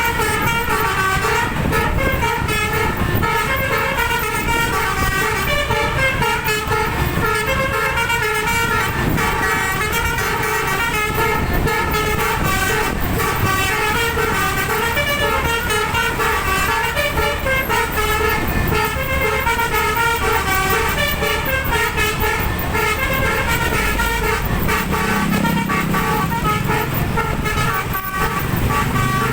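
Bus telolet horn, a bank of twelve air-horn trumpets, playing a quick, chopping multi-note tune over the rumble of road and engine noise. A lower, steady horn tone comes in near the end.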